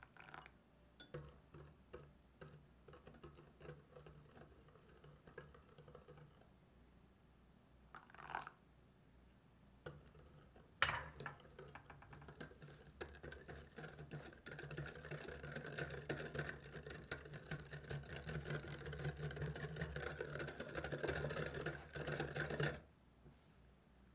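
Wire whisk beating egg yolks, sugar and milk in a glass bowl: quick clicking of the wires against the glass, turning into fast, steady beating in the second half and stopping abruptly near the end. A sharp clink about eleven seconds in.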